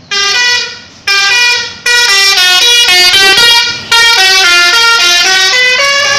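Telolet musical air horn of a super-high-deck bus, its Indian-style trumpets playing a tune. Two short blasts are followed by a long run of notes that step up and down in pitch without a break.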